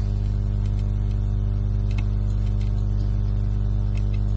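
Steady low electrical hum with a stack of overtones, with a couple of faint mouse clicks, one about two seconds in and one about four seconds in.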